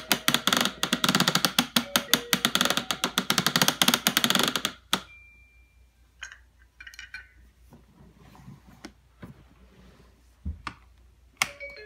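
Plastic clock hand on a VTech Sit-to-Stand Ultimate Alphabet Train toy being turned, making a fast run of ratcheting clicks that stops with a sharp click about five seconds in. After that come a few scattered clicks, a short beep and a knock, and near the end the toy starts an electronic tune.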